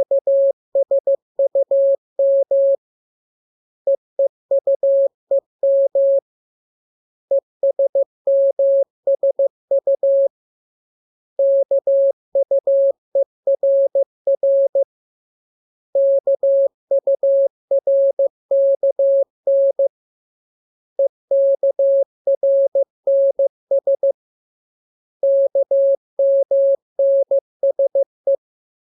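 Morse code practice: a single steady mid-pitched tone keyed on and off in dots and dashes, sent in groups of about three seconds with roughly a second's pause between groups.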